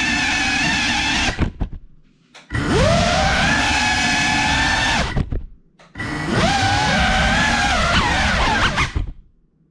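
FPV quadcopter's brushless motors and propellers whining at high speed, cutting out about a second in with a few knocks, spinning back up with a rising whine, cutting out again near the middle and restarting, then stopping near the end. The start-stop pattern with knocks fits the quad hitting things and crashing.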